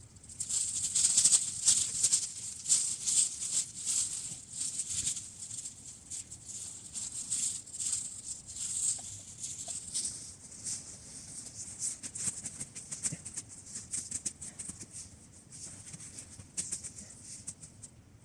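Bivouac tent fabric and gear being handled, rustling and crinkling irregularly. It is loudest in the first five seconds and lighter after that.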